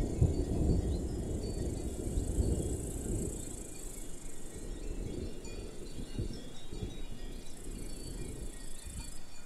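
Insects chirring steadily at a high pitch over a low rumble that fades away during the first few seconds. The chirring stops abruptly near the end.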